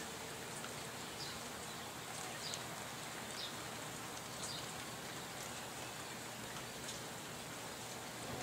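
Faint, steady hiss of light rain falling after a thunderstorm, with a few brief, faint high chirps scattered through it.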